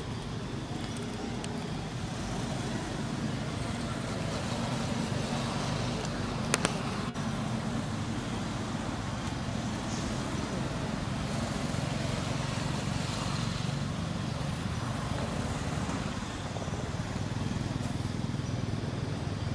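Steady outdoor background rumble, with a sharp double click about six and a half seconds in.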